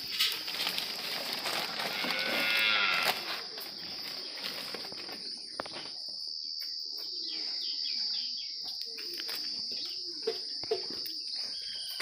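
Cows mooing several times, over a steady high-pitched whine.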